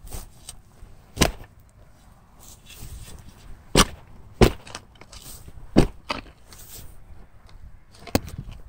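Footsteps through dry, matted grass, with a digging shovel knocking against the ground now and then. About five sharp knocks come at irregular spacing over a light rustle.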